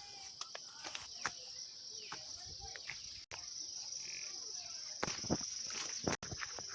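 Insects chirring steadily on one high pitch, with scattered light clicks and knocks over it.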